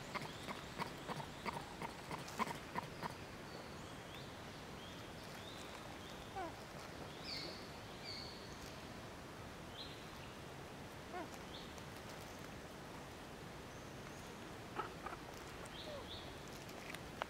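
Forest ambience with a quick run of sharp clicks, about three a second, over the first three seconds, then scattered short high chirps and squeaks.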